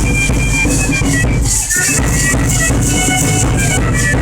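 Traditional feather-dance music: rattles shaken in a steady beat, about two shakes a second, over a high held melody line.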